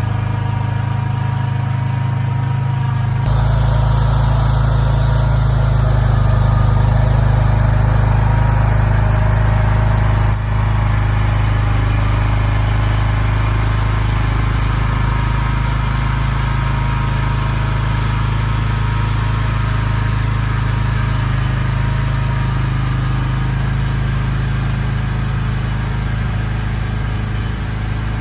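Skid steer loader's engine running steadily, stepping up in loudness about three seconds in and easing off slightly near the end.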